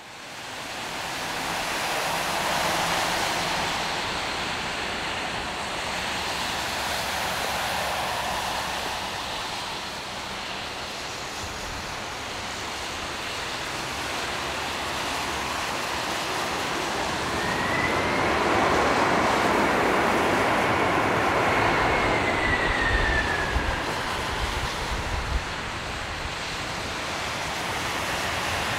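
Boeing 767-300F freighter's twin turbofans roaring in reverse thrust as it rolls out after landing on a wet runway, with a rushing hiss of spray. The sound fades in over the first two seconds. About two-thirds of the way through, an engine whine glides up and then falls away as the aircraft passes, and the roar is loudest there.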